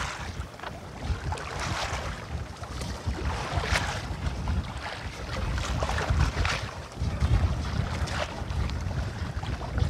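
Wind buffeting the microphone in an uneven low rumble, with water sloshing and splashing against a small boat's hull every second or two.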